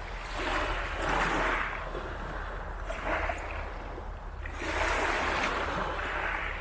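Small waves washing onto the beach, two surges of wash about four seconds apart over a steady low rumble.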